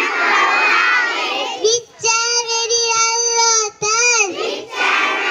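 A young girl singing a prayer song through a handheld microphone, in call-and-response with a group of children. The group repeats a line in unison at first, her solo line comes in about two seconds in, and the group answers again near the end.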